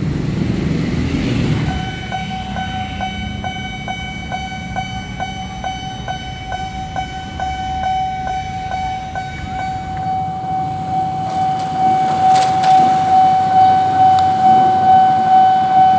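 Railway level-crossing warning bell sounding, a high tone pulsing about two and a half times a second, which runs into a steady tone about ten seconds in, over low traffic noise.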